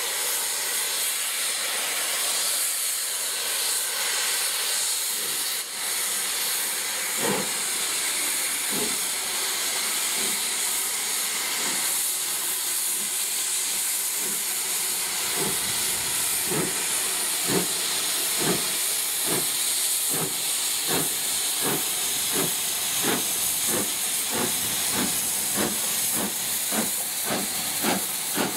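LNER B1 class 4-6-0 steam locomotive, B1 61264 running as 61002 Impala, starting a train away with its cylinder drain cocks hissing steadily. Its exhaust beats come in about seven seconds in, slow and spaced at first, then quicken to more than two a second as it picks up speed.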